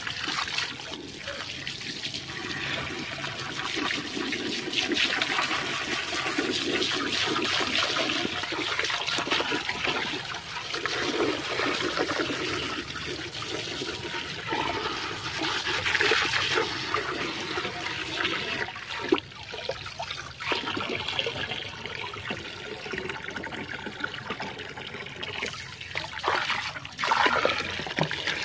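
A stream of water pouring and splashing into a ceramic toilet bowl as it fills with muddy, frothy water, with water sloshing as a hand stirs a lump of mud in the bowl; the splashing is continuous but uneven, briefly easing twice in the second half.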